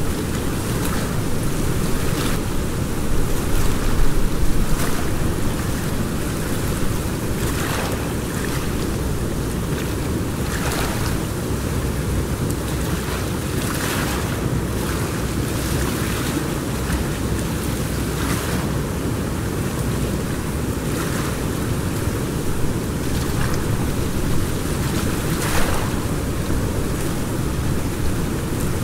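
Steady rushing of river water, with wind on the microphone, and short louder surges every second or two.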